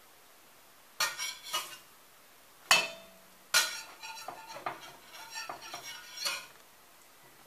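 Slotted metal spatula scraping and tapping against a stainless steel frying pan as pancakes are lifted and turned, with one sharp ringing clank of metal on the pan about two and a half seconds in, followed by a run of quick scrapes and taps.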